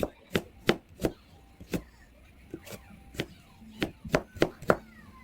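Kitchen knife chopping on a cutting board, about a dozen sharp knocks at uneven spacing.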